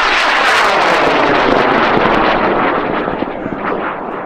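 A high-power rocket's solid-fuel motor burning through its launch: a loud rushing noise with a dense crackle, slowly fading near the end as the rocket climbs away.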